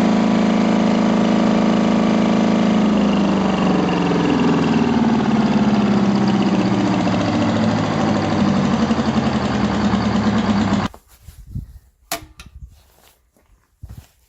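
200 kVA Detroit Diesel generator set's engine running with a steady note that turns rougher and uneven after about three seconds. It breaks off abruptly near the end, leaving a quiet stretch with a few faint knocks and clicks.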